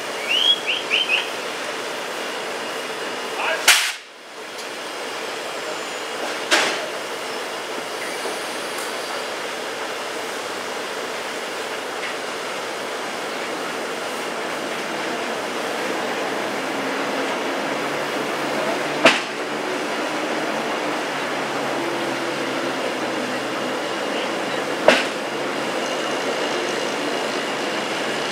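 Class 50 steam locomotive standing in steam on a slowly turning turntable, with a steady hiss of escaping steam. A few sharp single clicks or clanks come through, and there are short squeaks near the start.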